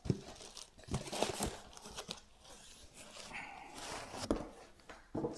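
Cardboard boxes being handled as a snug inner box is worked out of a shipping carton: cardboard rubbing and scraping, with a few soft knocks.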